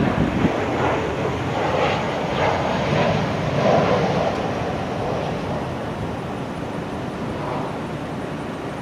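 Boeing 777 airliner on landing approach, its jet engines a steady distant rumble that eases slightly in level.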